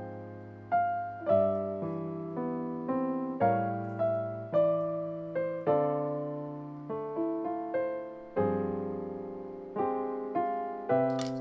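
Slow, gentle piano music, single notes and chords struck about every half second and left to fade. A short sharp click comes near the end.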